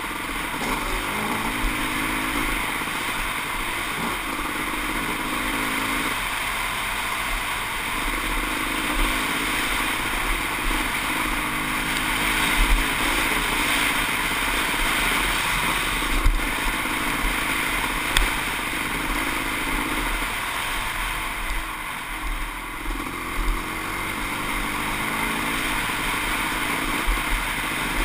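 Kawasaki KX500 two-stroke dirt bike engine running under way on a trail, its pitch rising and falling with the throttle, with a few sharp knocks along the way.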